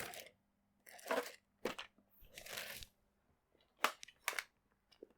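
Handling noise from rummaging through tools: a scattered run of sharp clicks and short rustles of small tools and plastic being picked up and moved about, with a longer rustle a little past halfway.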